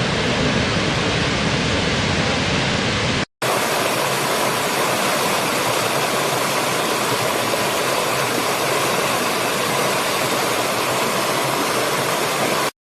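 Steady roar of a waterfall's falling water. About three seconds in it cuts out for an instant and resumes with a brighter, thinner rush. It stops abruptly shortly before the end.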